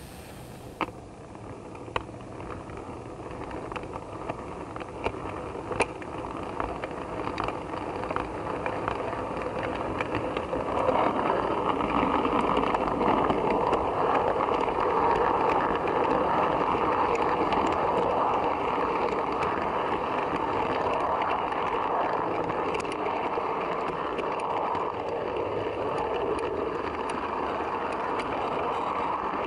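Model railway coach wheels rolling on the track, heard from on board the train: scattered clicks over rail joints and points as the train gets under way, then a steady rolling rattle, louder from about ten seconds in.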